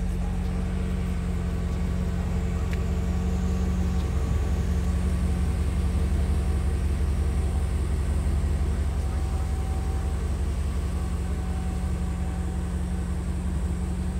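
Mercedes-Benz 500SL (R129)'s 5.0-litre DOHC V8 idling steadily through its one-off stainless-steel exhaust, a little louder in the middle.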